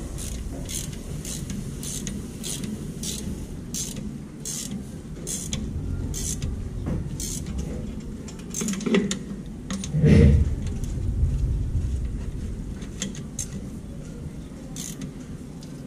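Ratchet wrench worked on a bolt in short strokes, a sharp click about every two-thirds of a second for the first half, then fewer, over a low steady rumble that swells briefly about ten seconds in.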